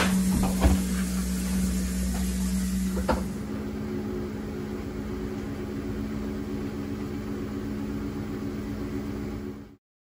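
Steady hum of an LG front-load washing machine running, with a few knocks in the first second and another about three seconds in, after which the hum steps slightly higher. It stops abruptly just before the end.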